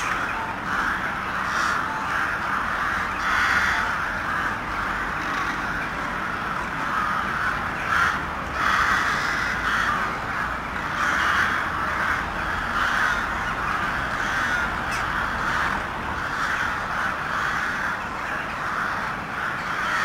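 A large flock of crows calling together, many overlapping caws merging into a continuous din.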